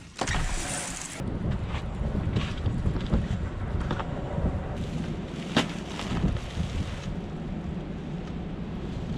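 Blizzard wind buffeting the microphone: a steady low rumble with gusts, and a few sharp clicks along the way.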